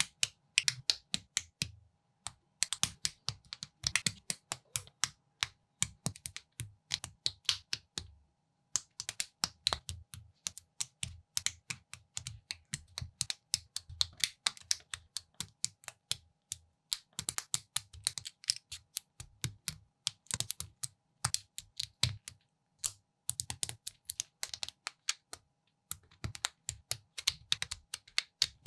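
Plastic Technic-style building pieces clicking and snapping as pins and beams are pressed together by hand, in quick irregular runs of clicks with soft knocks of handling. There are two short pauses, one about a third of the way in and one near the end.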